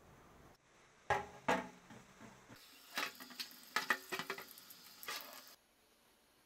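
Tap water running into a stainless steel sink while a rusty axe head is rinsed and rubbed by hand, with metal knocking and scraping against the sink. Two sharp knocks come about a second in, and the water stops shortly before the end.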